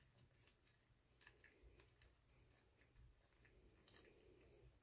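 Near silence, with a few faint ticks of small pistol parts being handled by gloved hands.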